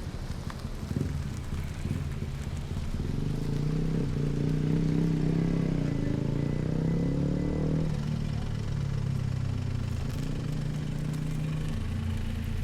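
Car engine under acceleration, its pitch climbing steadily for several seconds, then dropping suddenly about eight seconds in and running on steadily at lower revs.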